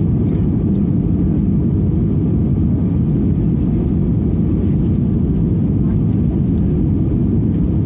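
Steady engine and airflow rumble of an airliner in its takeoff climb, heard from inside the cabin, even and unchanging.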